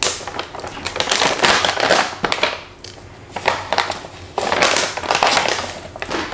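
Crinkling and rustling of protein-powder packaging being opened and handled, in several noisy bouts.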